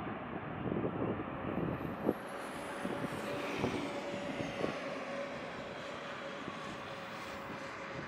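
Boeing 777-300ER jet landing, its engines giving a steady rush with a held whine. A faint high whistle falls away during the first few seconds.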